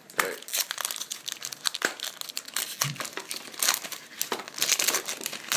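Foil Pokémon TCG booster pack wrapper crinkling and crackling as it is handled and opened, in a rapid, irregular run of crackles.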